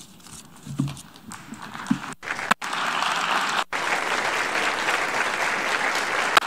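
Many people applauding in a large hall. The clapping is thin at first, swells about two seconds in, and then stays steady.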